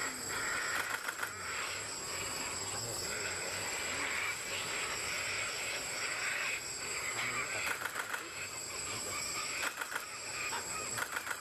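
Plain-pouched hornbills in a treetop: several short bursts of rapid, rhythmic wingbeats, about a second in, near 8 and 10 seconds, and near the end, over a steady background hiss.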